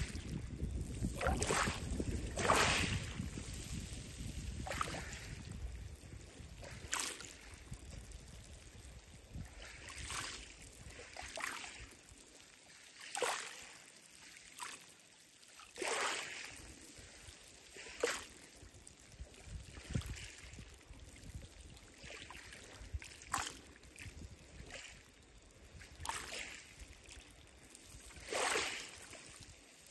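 Small waves lapping over wet pebbles at the water's edge, a short splash every two seconds or so. Low wind rumble on the microphone in the first few seconds.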